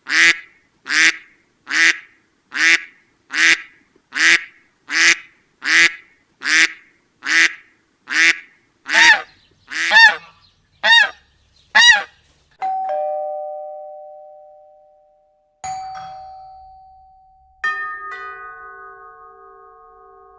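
A squeaky dog toy squeezed over and over in a steady rhythm, a little more than one squeak a second, about fifteen times; the last few squeaks rise and fall clearly in pitch. Then three struck bell-like chimes, each ringing on and slowly fading.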